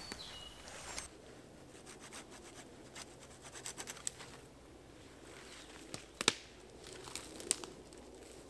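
Faint rubbing and scratching of conifer branches being handled at a fallen tree, with scattered sharp snaps, the loudest a quick pair about six seconds in.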